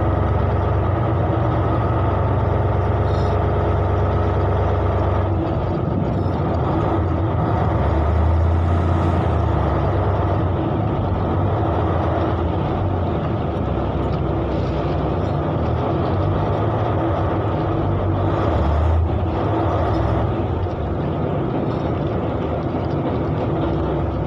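Boat engine running steadily while under way, heard on board as a loud, constant low drone with a steady hum on top.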